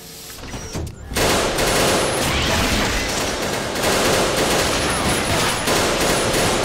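Sustained rapid gunfire from automatic weapons, a dense fusillade of shots that bursts in about a second in and keeps going, easing slightly near the end.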